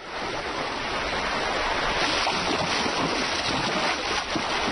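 Fast river water rushing steadily over rocks.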